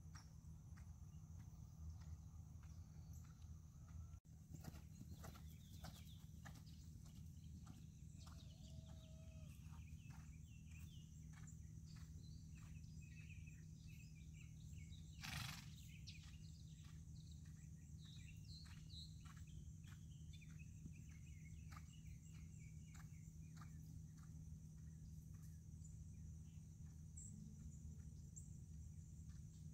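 Faint, soft hoofbeats of a horse trotting on sand arena footing over a steady low hum, with one short louder burst of noise about halfway through.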